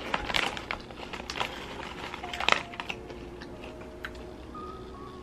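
Crinkling of a foil potato-chip bag as a hand reaches into it, mixed with crunching of a chip being chewed: a run of sharp crackles, loudest about two and a half seconds in, then thinning to a few faint ticks.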